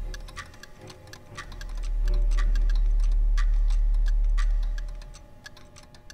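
Clock-like ticking laid into a film soundtrack: a sharper tick about once a second with lighter ticks between, over a deep low drone that swells up about two seconds in and fades out by about five seconds in.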